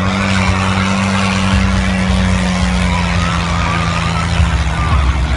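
Diesel tractor engine running loud and steady, its low rumble deepening about a second and a half in.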